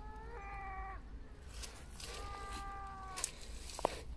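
An animal calling twice, each a steady pitched call of about a second, the second starting about a second after the first ends. A short sharp click comes near the end.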